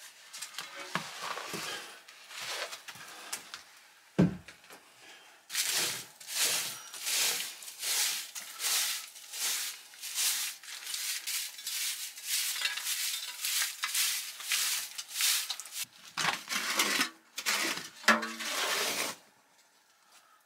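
Straw whisk broom sweeping soot and crumbled debris off the top of an old brick stove in quick, regular strokes. A single heavy thump comes about four seconds in, and there is some scraping near the end.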